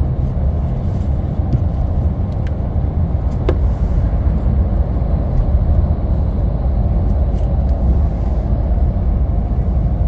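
Steady low road and engine rumble inside a moving vehicle.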